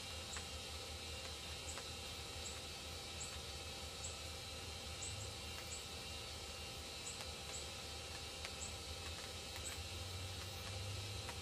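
Outdoor ambience: a steady low hum and hiss, with short high-pitched chirps repeating every half second to a second.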